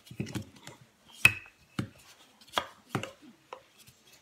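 Wooden rolling pin rolling out biscuit dough on a granite countertop, with several sharp knocks as it strikes the stone.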